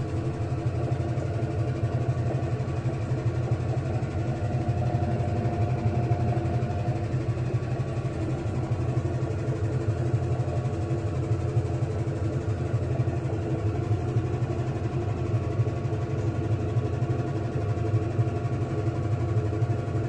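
IFB top-load washing machine running with its drum spinning: a steady low motor hum with a few steady tones above it, unchanging throughout.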